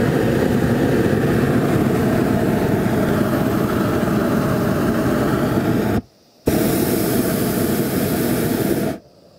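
Hot-air balloon's double propane burner firing loudly and steadily as its blast valve is held open by hand. It cuts off about six seconds in, fires again half a second later for about two and a half seconds, then shuts off.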